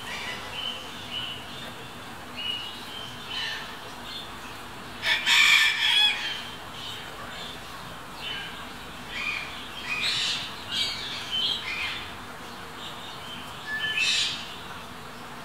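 Birds calling, with many short high chirps throughout. A louder, harsher call comes about five seconds in and another near the end.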